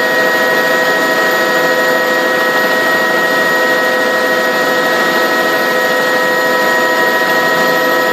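Helicopter cabin noise in flight: a loud, steady engine and gearbox whine made of several held tones over an even rushing noise, heard from inside the cabin.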